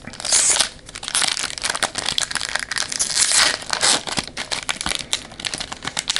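Foil wrapper of a Pokémon booster pack crinkling and crackling in the hands as it is torn open.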